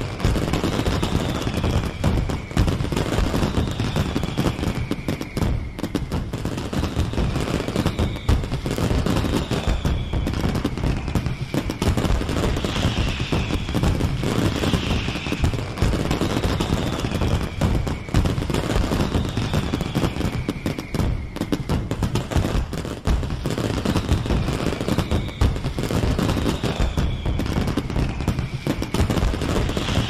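Fireworks sound effect: a dense, unbroken crackle and popping of bursting shells over a low rumble of booms. High whistles falling in pitch come round every second or two.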